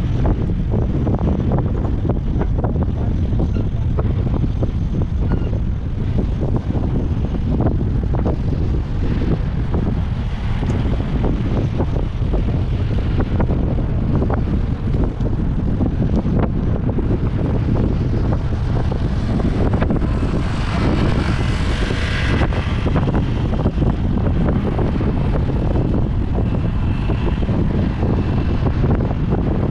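Wind rushing over a GoPro's microphone while riding a fixed-gear bicycle, a steady low rumble. A louder rush builds and fades about twenty seconds in.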